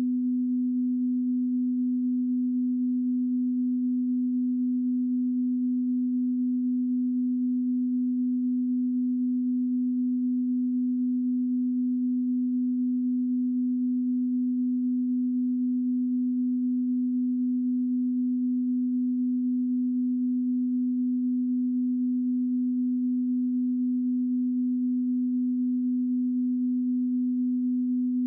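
Loud continuous electronic sine tone held at one steady low pitch without a break: a broadcast off-air tone left after the channel stops transmitting.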